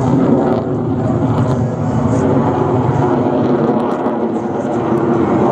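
Steady jet engine noise from an F-35A's Pratt & Whitney F135 afterburning turbofan as the fighter flies its display manoeuvres overhead.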